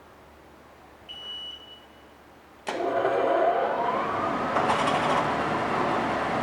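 A short steady electronic beep, then about 2.7 s in the 1997 Mercury 40 hp three-cylinder two-stroke outboard fires up at once and runs, its pitch rising over the next second and then holding at a fast idle.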